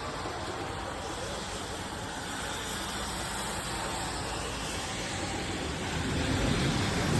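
Steady hiss of heavy thunderstorm rain, with a low rumble that swells and grows louder about six seconds in.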